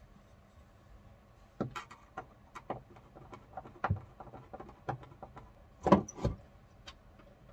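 Scattered knocks and clicks of hands and a tool working inside a wooden boat locker to loosen screws, with a louder pair of knocks about six seconds in.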